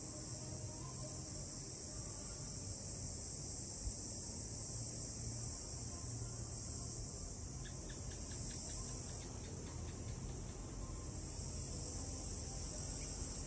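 Steady, high-pitched chorus of crickets and other insects chirring, swelling and easing slightly.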